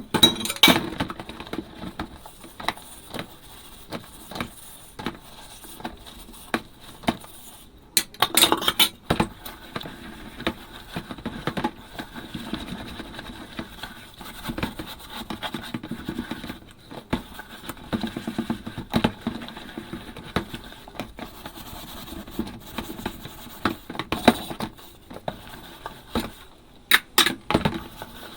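Ceramic and glass dishes clinking and knocking against each other as they are washed by hand, with bursts of sharper clatter at the start, about eight seconds in and near the end.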